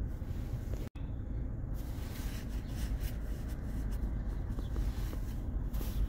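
Steady low rumble of a freight train rolling past, heard from inside a vehicle, with a few faint clicks. The sound cuts out for an instant about a second in.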